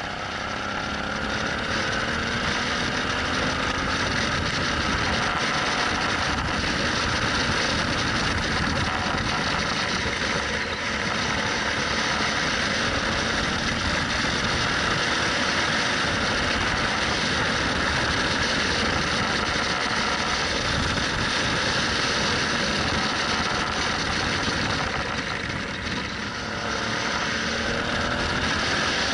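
Suzuki V-Strom 650's 645 cc V-twin engine under way, mostly covered by wind rushing over the microphone. The engine note rises as it accelerates about a second in, and again near the end after a brief dip for a bend.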